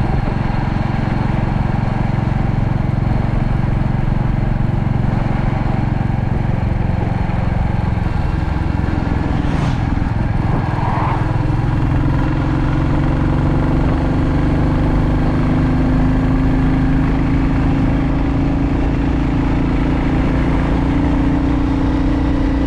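Royal Enfield Classic 350's single-cylinder engine running on the road, with a steady note. About eight seconds in, the note falls away briefly, then settles at a higher pitch that slowly climbs.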